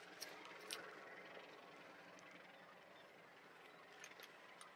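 Near silence: faint outdoor hiss with a few faint clicks.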